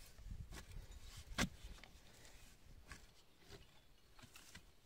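Faint, scattered knocks and scrapes of a hand digging tool working into dry soil and lifting out earth, with one sharper knock about a second and a half in.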